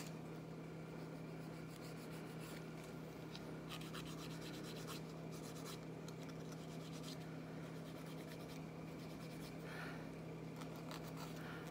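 Faint scraping and rubbing of a thin wooden stick cleaning under and around fingernails, in light scattered strokes, over a steady low hum.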